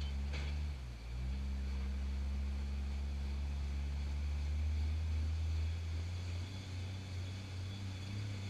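Rock-crawler buggy's engine running steadily at low revs as it crawls up a sandstone ledge. The revs dip briefly about a second in, then pick up and rise a little near the end. A single short click comes just after the start.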